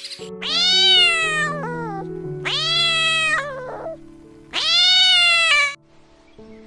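A cat meowing three times, each meow about a second long, rising then falling in pitch, over soft background music.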